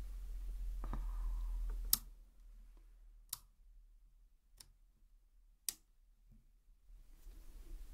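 Sharp plastic clicks from handling the battery compartment of a 3Dio Free Space binaural microphone during a battery change. The loudest click comes about two seconds in, followed by three fainter ones about a second apart. After the first click the background hum and hiss drop away, and they return near the end.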